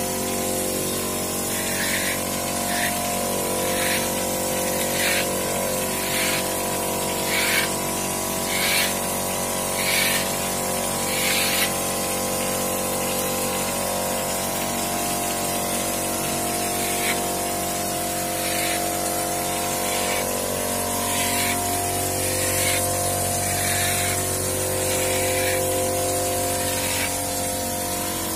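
Hopper spray gun on compressed air shooting travertine-texture plaster onto a wall in short hissing bursts, about one a second for the first dozen seconds and more sparsely after. An air compressor hums steadily underneath.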